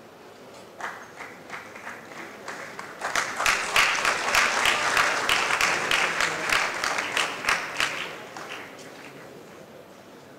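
Audience applauding. Scattered claps about a second in swell into full applause at about three seconds, which dies away after about eight seconds.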